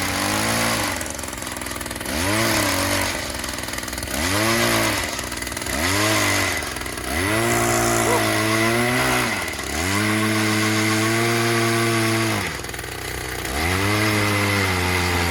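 Gas-powered ice auger engine revving up and dropping back again and again, in short bursts at first, then longer held runs, as it drills a hole through the lake ice.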